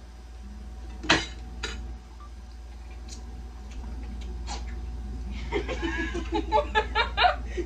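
A couple of sharp clicks early on, then someone breaks into rhythmic giggling in the last two seconds.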